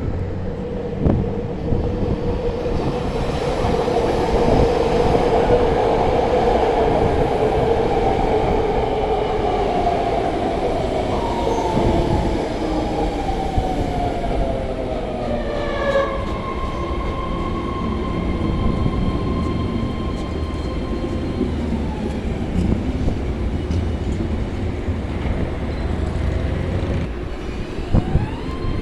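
BART legacy-fleet electric train pulling into the station: its traction motor whine slides steadily down in pitch for about twelve seconds as it brakes. It then gives way to a steady high whine while the train stands. A new rising whine starts near the end.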